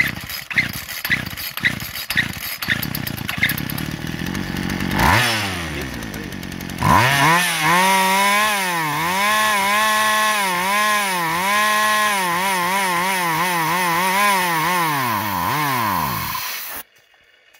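Poulan Pro two-stroke chainsaw engine, running on brake cleaner and compressed air. It sputters with about two knocks a second, then catches and revs high, its pitch rising and dipping about once a second. Near the end it winds down and stops suddenly.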